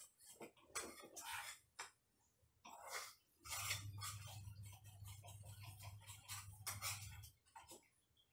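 Faint, irregular scrapes and taps of a utensil working a deboned chicken thigh in a frying pan on a gas stove. A low steady hum runs for a few seconds in the middle.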